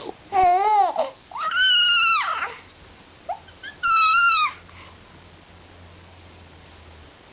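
Four-month-old baby's high-pitched squealing calls, three in the first half, each rising and falling in pitch.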